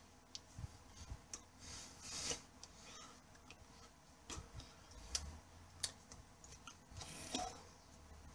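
Faint, irregular clicks, taps and brief rubbing swishes of hands moving and brushing together close to the microphone, with a few soft low thumps.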